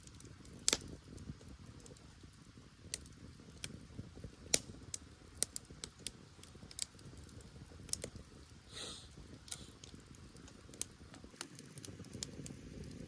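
Firewood burning in a campfire: irregular sharp crackles and pops over a low rumble of flame, the loudest pop under a second in, with a brief hiss about nine seconds in.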